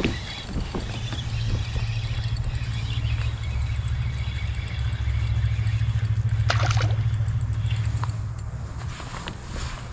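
Spinning reel being cranked to fight a hooked largemouth bass, a fast fine ticking over a steady low rumble that swells toward the middle. A brief splash comes about six and a half seconds in as the fish breaks the surface beside the kayak.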